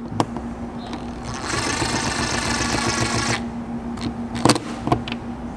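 Ridgid cordless driver running for about two seconds, driving a small hex screw into the roof. A couple of light clicks come near the end.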